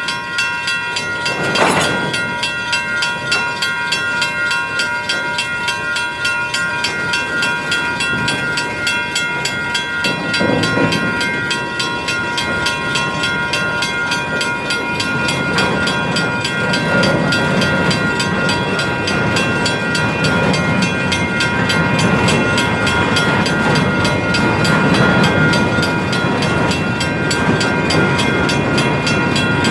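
Side-dump ballast gondola cars rolling past: steel wheels rumbling and knocking over the rails, with steady high-pitched ringing tones above the rumble. The low rumble grows a little heavier about halfway through.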